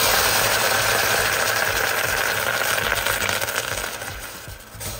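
Vinegar sizzling in a hot stainless steel saucepan, poured onto the bare heated metal. The hiss is loud at first and dies down gradually as the pan cools under the liquid.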